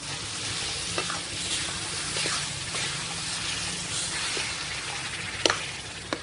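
Watermelon-rind paste sizzling in ghee in a stainless steel kadhai as it is stirred with a metal spatula, a steady hiss with occasional scrapes and clicks of the spatula on the pan. A sharper click comes about five and a half seconds in.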